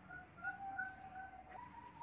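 Faint bird calls: a quick run of short repeated notes, then a steadier, higher note near the end.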